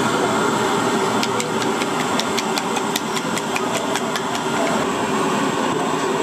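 Steady mechanical hum with a continuous rush of noise. In the middle it carries a quick run of light clicks or taps, about four or five a second.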